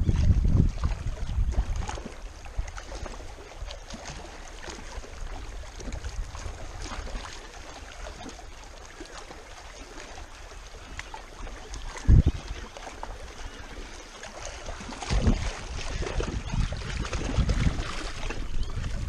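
Wind buffeting the microphone and small waves lapping against shoreline rocks, with a single sharp knock about twelve seconds in. The wind gusts harder near the start and again toward the end.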